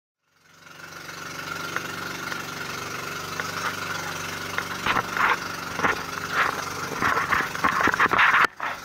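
An engine running steadily, fading in. Irregular knocks and clatter grow louder in the second half before the sound cuts off.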